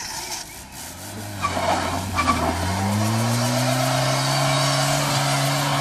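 Fiat Uno's engine revving up and held at high revs while its front tyres spin on wet asphalt with a steady hissing squeal. The revs climb from about one and a half seconds in and level off about halfway through.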